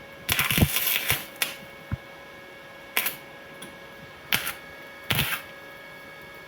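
Titanium Easy Flux 125 flux-core welder's arc crackling in four stop-start bursts: a first one of about a second, then three brief ones.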